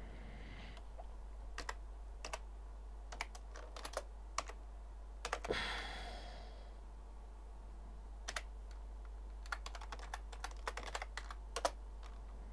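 Typing on a computer keyboard: scattered, irregular key clicks, with a quicker run of keystrokes near the end.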